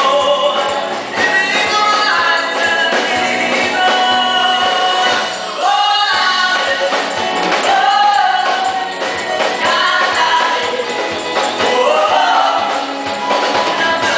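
Live band playing, with male and female voices singing together over drums, percussion and electric guitar.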